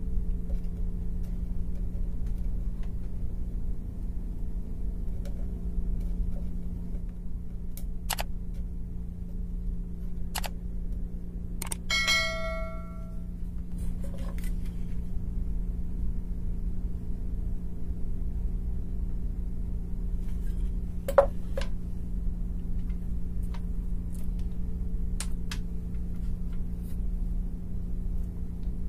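Tools and small metal parts being handled on a workbench during amplifier assembly: scattered clicks and taps over a steady low hum, with one short metallic ring about twelve seconds in and a sharper click a little past twenty seconds.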